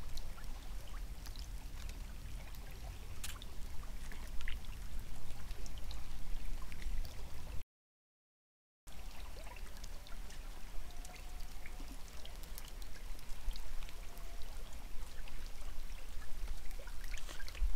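Open stream running, an even watery hiss with a low rumble and scattered faint ticks; the sound drops out completely for about a second partway through.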